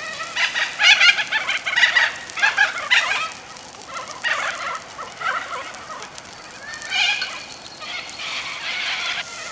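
Laughing kookaburras calling in bursts of rapid, cackling laughter, loudest in the first three seconds and starting up again several times after.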